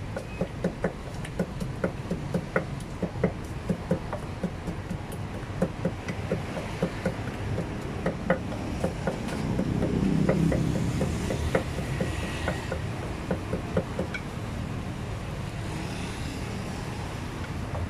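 Wooden pestle pounding in a clay mortar: a steady run of sharp knocks, about three a second, over a constant hum of traffic, with a passing engine swelling up around ten seconds in.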